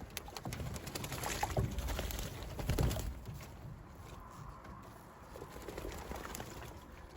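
Racing pigeons in their loft: a run of light knocks and scuffles, busiest in the first three seconds, with pigeons cooing.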